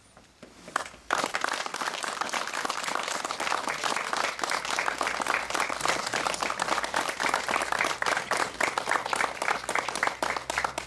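Crowd applauding, starting suddenly about a second in and keeping up steadily.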